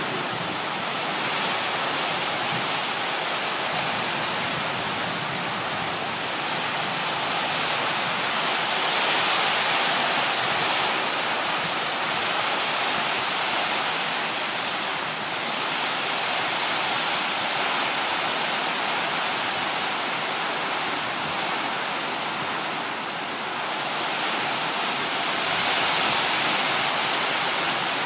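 Heavy rain pouring down in a thunderstorm downpour, a steady rushing that swells a little a couple of times.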